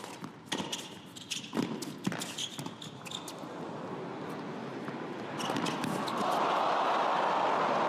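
Tennis rally on an indoor hard court: sharp racket strikes on the ball, roughly every half second to a second. From about five seconds in, crowd noise swells and holds loud to the end as the point is won.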